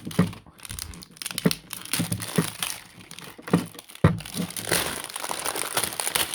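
Packaging being handled and unwrapped while a repair toolkit is unboxed: irregular crinkling and rustling, with a sharp click about four seconds in.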